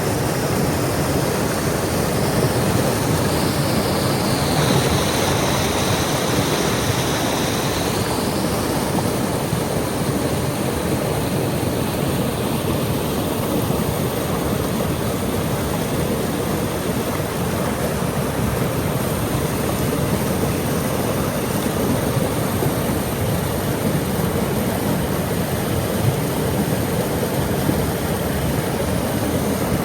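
Waterfall: steady, loud rush of falling water.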